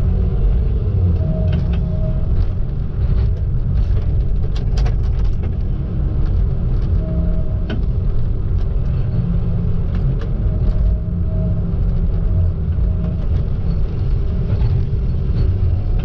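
Tigercat log loader's diesel engine running with a steady low rumble as the boom and grapple work. A thin whine comes and goes several times, with scattered clicks and knocks over it.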